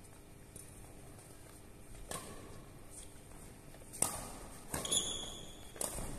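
Badminton rally: rackets striking a shuttlecock, about four sharp hits one to two seconds apart, the loudest about four seconds in, with a brief shoe squeak on the court floor near five seconds.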